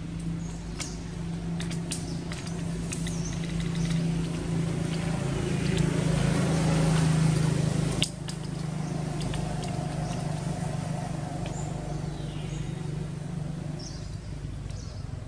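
Steady low engine hum that grows louder toward the middle and drops off sharply about eight seconds in, with scattered small clicks and faint bird chirps.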